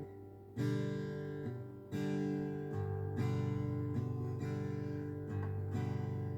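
Acoustic guitar playing a slow instrumental passage between sung verses, chords strummed about once a second and left to ring.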